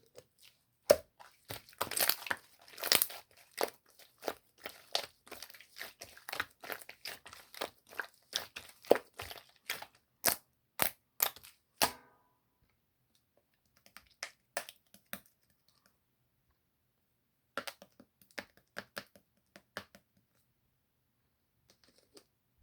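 Slime being squeezed, stretched and pressed by hand, making dense sharp crackling pops and clicks for about twelve seconds. After that come a few scattered pops with quiet between them.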